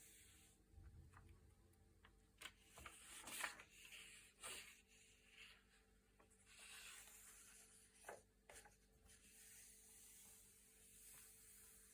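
Thick, glossy paper pages being turned by hand: soft rustling sweeps with a few crisp snaps of paper, the loudest turn about a third of the way in.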